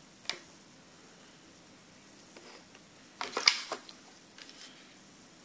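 Small cosmetic products being handled and set down on a wooden table: a light tap about a third of a second in, then a short cluster of knocks and rustles about three seconds in as an eyeshadow compact is put down.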